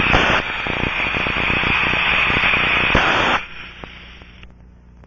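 Ultrasound heard through an Ultraprobe 2000 leak detector's earphone output: a loud rushing hiss with crackles, picked up while scanning pneumatic ducting. It cuts off sharply about three and a half seconds in, leaving a faint low hum.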